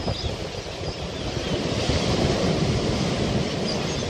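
Surf breaking and washing up the beach, swelling about two seconds in, with wind buffeting the microphone. A few faint gull calls come through above it.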